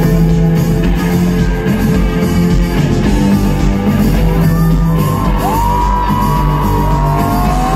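Live band playing loud amplified rock music, recorded from the crowd. From about halfway through, a high held note slides and bends over the band.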